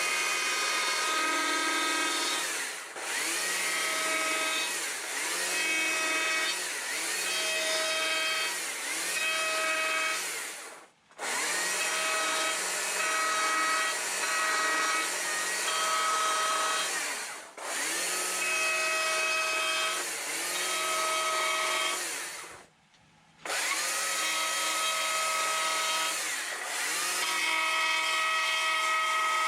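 Battery-powered chainsaw with a dime-tip carving bar and thin .043-gauge chain, cutting letters into a wooden board. Its motor whine dips in pitch every second or two as the chain bites into the wood, then recovers. The saw stops briefly twice.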